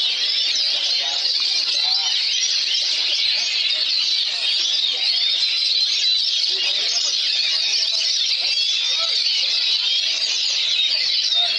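Many caged songbirds singing at once, a dense unbroken tangle of quick high chirps, whistles and trills, with oriental magpie-robins (kacer) among them.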